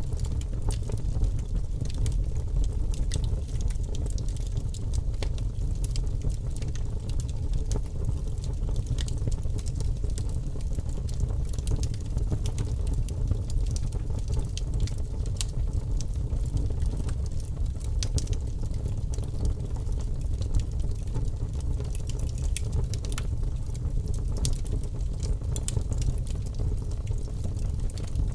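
Steady low rumbling ambience with faint, scattered crackles and ticks above it.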